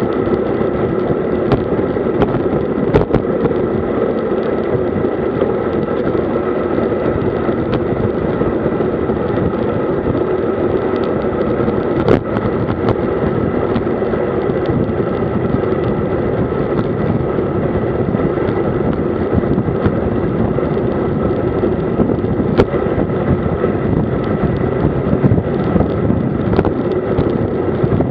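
Steady rushing wind on the camera's microphone and road-bike tyre hum while riding at about 55 km/h, with a few brief ticks.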